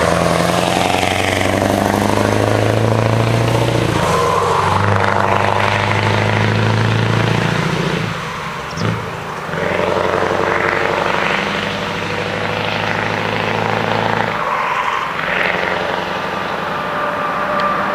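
Scania 164L 580's V8 diesel engine pulling hard as the truck drives past and away, a deep, loud engine note that breaks off briefly about 4, 8 and 14 seconds in as it shifts up through the gears.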